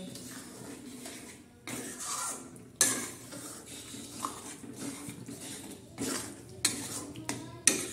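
Spatula stirring and scraping through chicken curry in an aluminium kadai, with a few sharp metal clanks of the pans.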